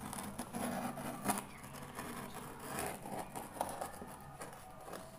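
Utility knife blade slitting the packing tape along a cardboard box's seam: scratchy scraping strokes, with a few sharp clicks.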